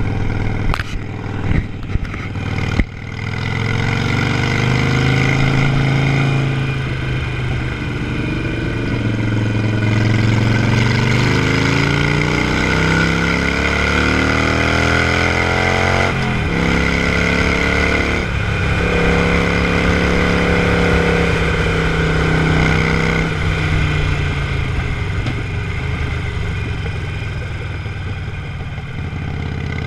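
Harley-Davidson Iron 883's air-cooled V-twin engine running while riding. It rises in pitch as it accelerates, drops sharply about sixteen seconds in, holds steady, then falls off near the end. A few sharp knocks come in the first three seconds.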